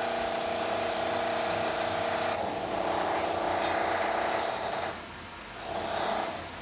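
Loud, steady machine buzz of a power tool such as a drill. It cuts off about five seconds in and runs again briefly near the end.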